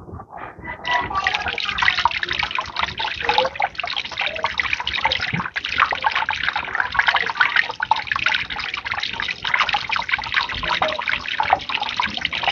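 Water pumped by a submersible pump gushing out of the end of a discharge hose and splashing onto concrete. It builds about a second in, then runs as a steady splashing rush.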